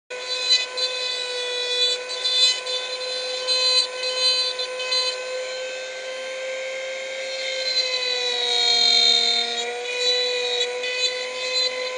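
Flexible-shaft rotary tool whining at high speed as its bit grinds into a plastic chainsaw top cover, with a scratchy rasp over the steady motor tone. The pitch sags a little about eight seconds in and then recovers.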